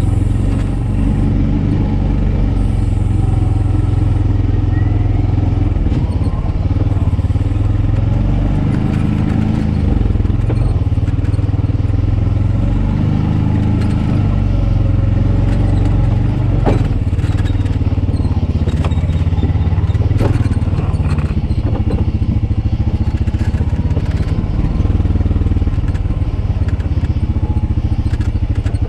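Honda Pioneer 520 side-by-side's single-cylinder engine running steadily under way, its pitch shifting a little with throttle. A few sharp knocks and rattles come from the machine jolting over the trail, two of them in the second half.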